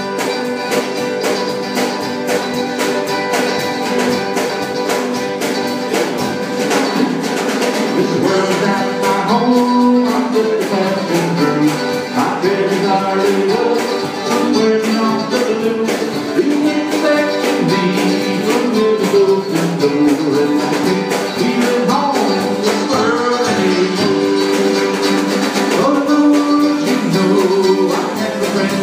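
Live acoustic band music: a strummed acoustic guitar and a mandolin playing melody lines over a drum kit, at a steady beat.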